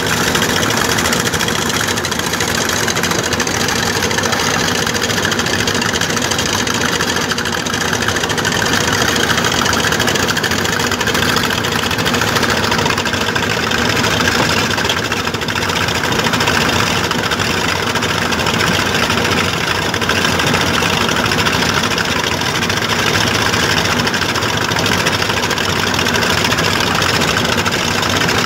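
Engine of a sand-dredging pump running steadily, over the rush of sand-and-water slurry pouring into a sand boat.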